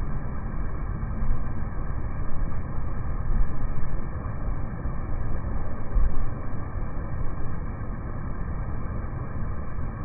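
Outdoor air-conditioner condenser unit running, its fan blowing air up through the top grille: a steady drone and rush of air, heaviest in the low range.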